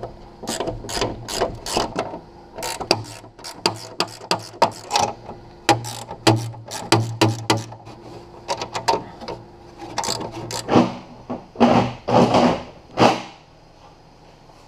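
Ratchet wrench clicking in quick, irregular runs while loosening the bolts that hold a rack onto a snowmobile, with metal knocks between runs. Near the end come a few louder, longer scraping sounds, and then the clicking stops.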